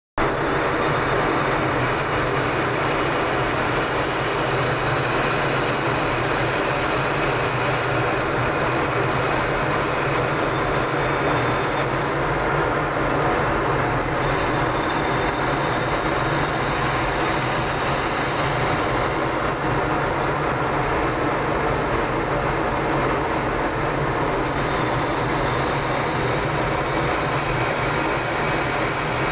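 Fighter jet's engines running with a loud, steady noise that holds the same level throughout, with a thin high whine on top.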